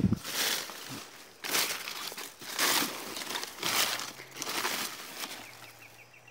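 Dry, dead plantain leaves being stripped from the base of the plant's stem, crackling and tearing in a series of short bursts, roughly one a second.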